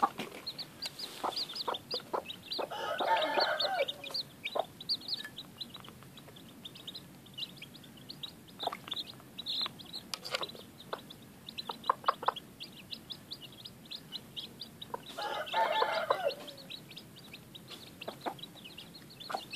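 Chicks peeping in quick, high chirps throughout, with a hen clucking; twice, about 3 seconds in and about 15 seconds in, a longer, louder call rises over the peeping for a second or so.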